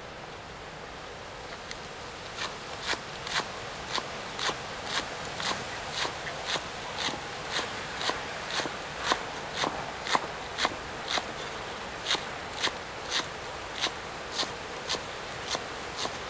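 Cleaver chopping spring onions finely on a thick round wooden chopping board: a steady run of knocks about twice a second, starting about two seconds in.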